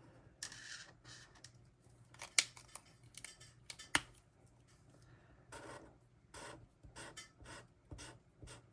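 Paper being handled at a table: two sharp clicks in the first half, then a series of short rubbing, scratching strokes about half a second apart.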